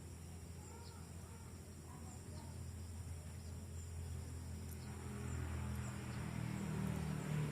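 Outdoor ambience: faint bird chirps and regular insect ticks over a low hum that grows louder in the second half.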